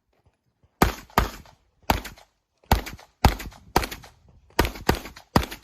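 Handgun fired in a fast string of nine sharp shots, some as quick pairs, about a third of a second to a second apart.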